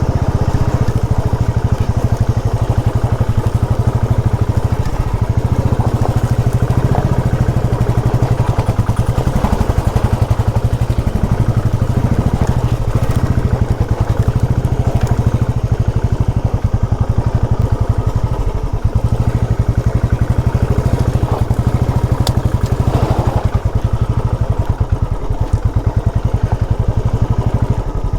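Motorcycle engine running steadily at low speed on a rough, rocky track, its pitch dipping and rising a few times as the throttle changes.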